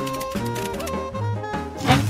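Upbeat, jazzy background music with a steady bass line and beat, and one sharp, loud hit near the end.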